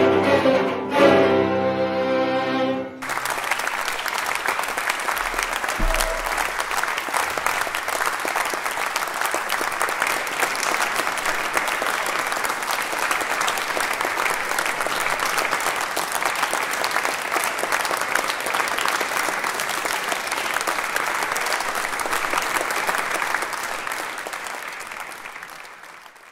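Bowed strings of a chamber ensemble playing, cut off abruptly about three seconds in. Audience applause follows, steady, then fading out near the end.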